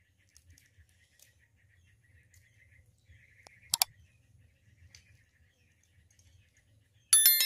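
Subscribe-button animation sound effects: a single sharp mouse click a little under four seconds in, then a bright bell ding near the end. Under them, faint rapid chirping in the background.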